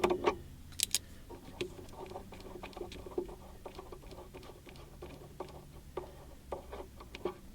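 Ratchet socket wrench clicking in short irregular runs while loosening the nut on a car battery's negative terminal clamp, with a sharper pair of metallic clicks about a second in.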